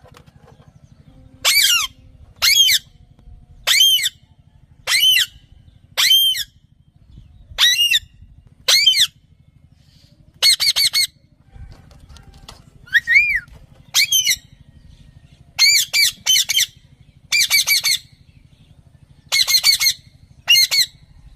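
Green parrot squawking: a string of loud, harsh, short calls about a second apart, some in quick doubles and triples towards the end.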